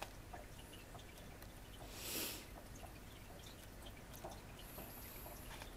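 Paper pages of a softcover book being flipped one after another: scattered soft paper ticks, with one louder page swish about two seconds in, over a faint low hum.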